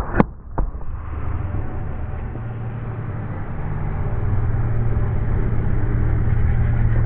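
Road roller running close by as its steel drum rolls over shaken plastic soda bottles: two sharp pops in the first second as bottles burst under the drum, then a steady engine drone that grows louder toward the end.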